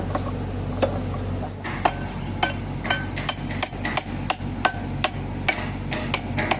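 Hammer striking steel parts in a quick series of ringing metal clanks, about three to four a second, starting about two seconds in, over a steady low hum.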